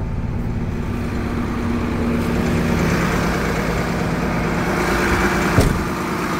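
Freightliner truck's diesel engine idling steadily, getting louder about three seconds in, with a single sharp knock near the end.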